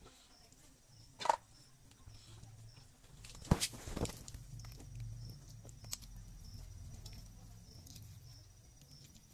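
Raw duck carcass being handled and pulled apart on a wooden chopping stump: three sharp knocks against the wood, the loudest about three and a half seconds in, then low rustling handling noise.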